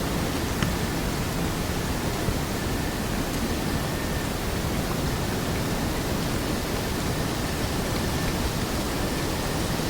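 Forest ambience: a steady, even rushing hiss, with a few faint high ticks above it.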